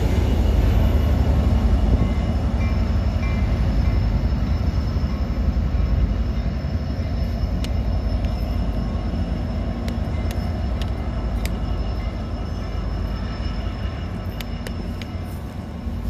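Diesel locomotive of a Coaster commuter train rumbling as it pulls away, growing gradually fainter, with a few short high clicks from the rails and wheels partway through.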